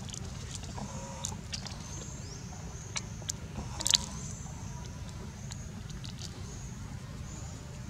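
Outdoor ambience: a steady low rumble with scattered sharp clicks, the loudest about four seconds in, and a thin high buzz that comes and goes.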